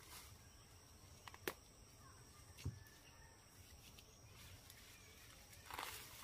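Weeds and brush being pulled up by hand: quiet rustling of stems and leaves with a few sharp snaps, the loudest about a second and a half in, and a longer rustle near the end.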